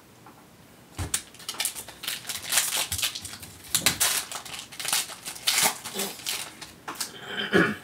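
Foil wrapper of a football trading-card pack being torn open and crinkled by hand: a dense run of sharp crackles from about a second in, stopping just before the end.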